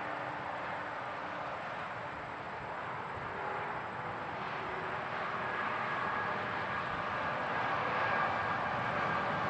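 Close interstate highway traffic: a steady wash of tyre and engine noise from passing vehicles, swelling a little louder over the second half as more traffic comes by.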